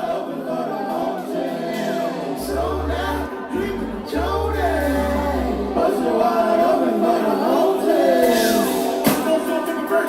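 Music with melodic singing throughout, joined by deep bass notes a few seconds in.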